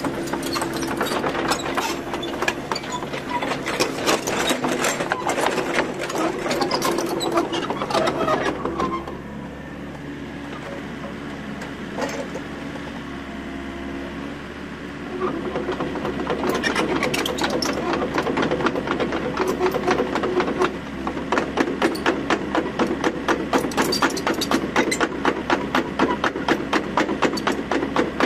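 Komatsu PC40MR-2 mini excavator's diesel engine running under hydraulic load, with a fast mechanical rattle, as the machine slews and pushes its boom down to lift its tracks. The load eases about nine seconds in for several seconds, then rises again. Near the end the clatter turns rhythmic, a little over two beats a second.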